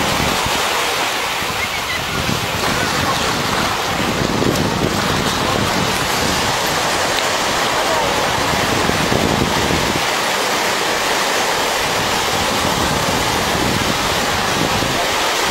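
Surf breaking on a beach: a steady rush of waves.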